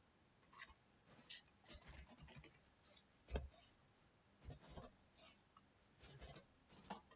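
Faint, irregular clicks of computer keyboard keys being typed, with one louder tap about three and a half seconds in.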